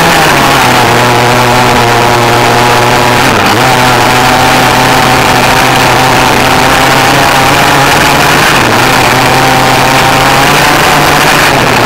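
Motor of an RC car running at a steady pitch, heard up close from a camera mounted on the car, with the pitch dipping briefly twice.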